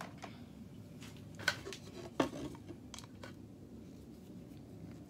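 A handful of light clicks and knocks from a screwdriver and a small wooden block being picked up and handled on a workbench, the loudest about two seconds in. After that only quiet workshop background while a screw is turned in by hand.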